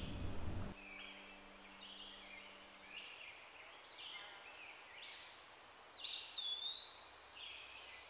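Small birds chirping and whistling faintly, short calls with quick pitch glides and one longer falling whistle about six seconds in. Under a second in, a louder, even wash of background sound cuts off suddenly, and a faint low hum fades out a few seconds later.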